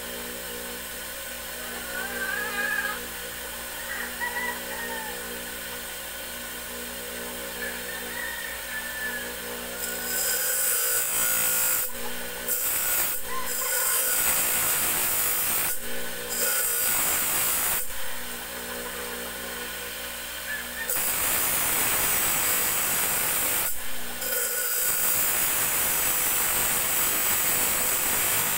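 A motor-driven abrasive grinding wheel runs with a steady hum. From about ten seconds in, a steel tari blade blank is pressed against it in repeated passes of a few seconds each, each pass a loud, harsh grind with short pauses between.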